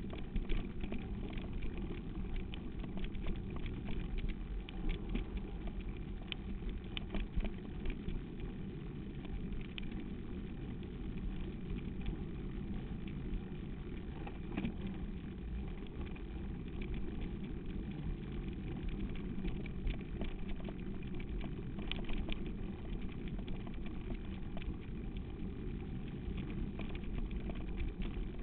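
Steady rumble of wind on the microphone and mountain-bike tyres rolling over a dirt track, with frequent small clicks and rattles of the moving bike and camera.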